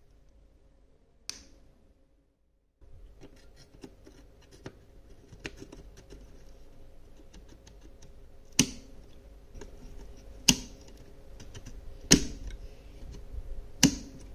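30-pin SIMM memory modules being pushed into their motherboard sockets: small plastic clicks and rattles, then four sharp snaps about every second and a half to two seconds as each module latches into its slot.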